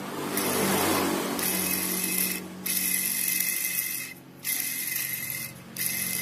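Worn ball bearing on a Yamaha Mio Soul scooter crankshaft spun by hand, a rough grinding rattle in about four spins with short breaks between them. The bearing is badly worn, the sign of the engine having run out of oil.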